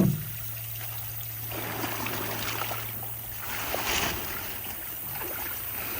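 Water rushing out of a flooded rice field through a drain gate whose wooden boards have just been pulled, a steady gushing that swells and eases a little. A thump right at the start.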